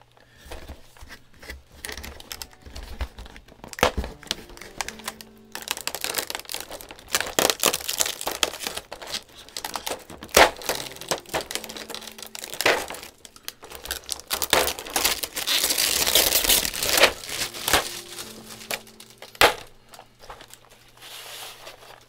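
Clear plastic keycap trays and their plastic wrapping crinkling and clattering as they are lifted and handled, with a few sharp knocks of trays and caps being set down.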